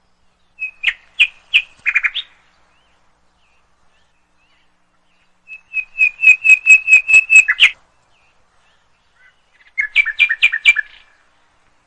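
African grey parrot chirping in three quick runs of high, whistle-like notes: a short run about a second in, a longer run of about ten fast notes around six seconds in, and a run of two-toned notes near the end.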